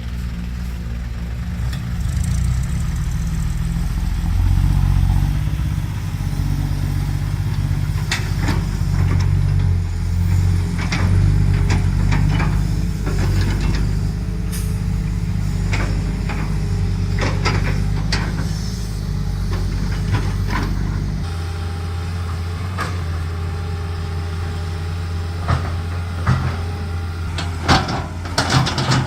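Heavy diesel engine of a working excavator running, its level rising and falling, with scattered sharp knocks and clanks. About twenty seconds in the engine settles to a lower, steadier run.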